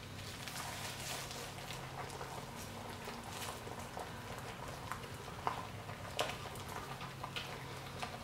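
Gloved hands handling a whole raw redfish on a plastic cutting board: the disposable plastic gloves crinkle and the wet fish squelches and taps against the board in scattered small sounds, with two sharper taps about five and a half and six seconds in. A faint low hum runs underneath.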